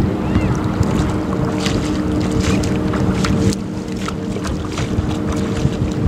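Wind rumbling on the microphone over a steady low engine hum, with brief faint high bird chirps scattered through.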